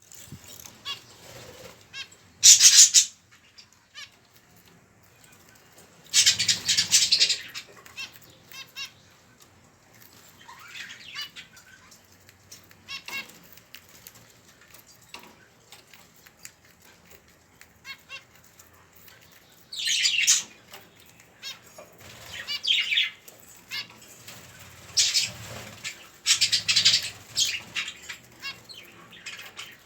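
Budgerigar chicks during feeding: several short bursts of raspy, fluttering noise, with faint scattered ticks between them.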